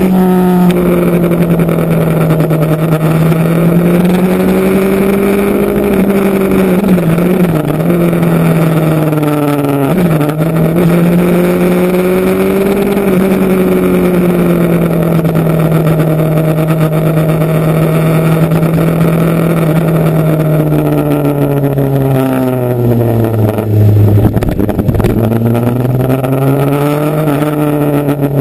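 Motorcycle engine running under way, its note rising and falling with the throttle. The pitch breaks briefly about 7 and 10 seconds in, like gear changes, and sinks to a low note near the end before climbing again.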